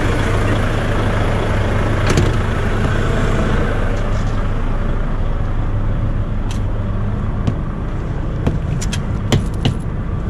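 Truck's diesel engine idling with a steady low hum. A single knock comes about two seconds in, and several short sharp clicks and taps follow in the second half.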